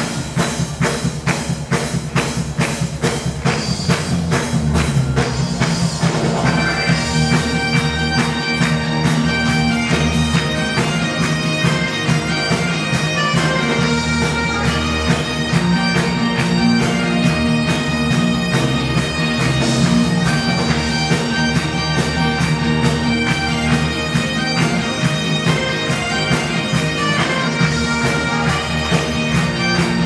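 Bagpipe dance tune with drums, the pipe drones held steadily under the melody; a fast, even drum beat stands out in the first few seconds.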